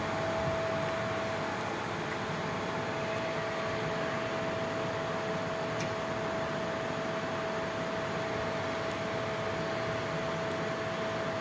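Fiber laser metal-cutting machine running: a steady hiss with a steady mid-pitched hum over it.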